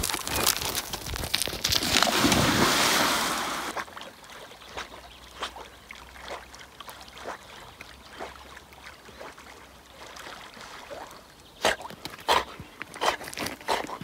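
A loud steady rushing noise that stops abruptly about four seconds in. Then soft, irregular splashing and sloshing of lake water as a Labrador retriever swims, with a run of louder splashes near the end.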